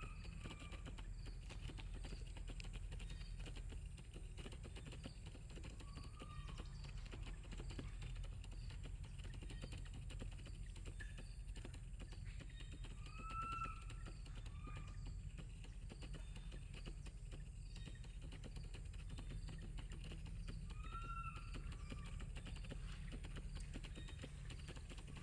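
Outdoor ambience: a steady low rumble with scattered light clicks, and a short high call that rises and falls, heard about four times.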